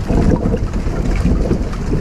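Creek water flowing and splashing over a steady, deep low rumble.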